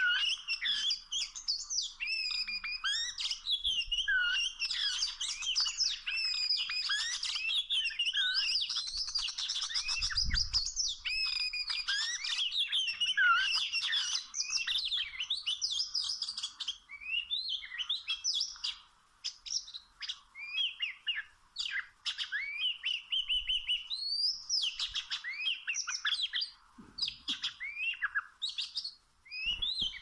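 Oriental magpie-robin song: a long, varied run of clear whistles and chirps. The notes come densely at first and break into more separate, spaced-out phrases after about halfway.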